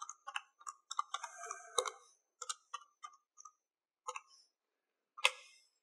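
Calculator keys being pressed: faint, irregular clicks and taps, with one louder click near the end.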